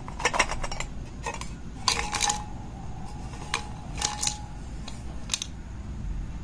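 Jigsaw puzzle pieces rattling inside a stainless steel mug as it is moved about and tipped out onto a table, in several short spells of clatter, a few followed by a faint metallic ring from the mug.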